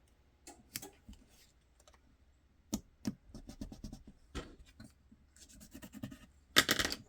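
Small parts being handled and set in place on a workbench: scattered light taps, clicks and scratchy rubs, with one louder scrape about six and a half seconds in.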